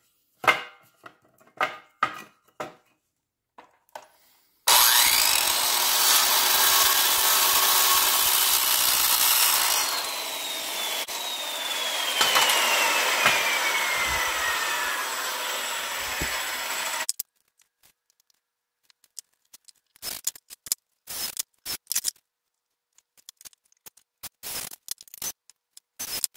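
A power saw cutting wood in one long, steady cut of about twelve seconds, starting about five seconds in and stopping abruptly, with a whine that slides down in pitch partway through. Short knocks from handling wood come before and after the cut.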